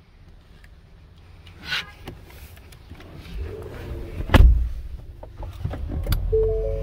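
A pickup truck's door handled with clicks and then shut with a loud clunk about four and a half seconds in. Steady chime tones start near the end.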